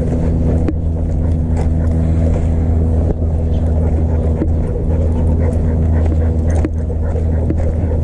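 A small motor running steadily with an even low-pitched drone, with a few light clicks or knocks over it.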